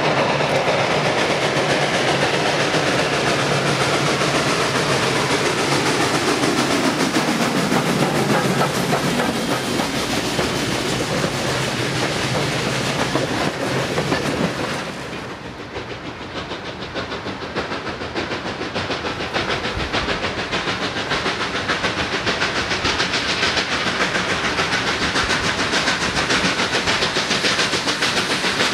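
A train running on rails, with a falling whine over the first several seconds; the sound drops in level about halfway through and then runs on steadily.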